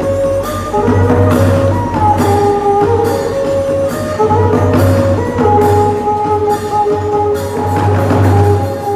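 Khmer traditional ensemble music: a melody of held notes with short slides between pitches, over a steady beat of drums and jingling percussion.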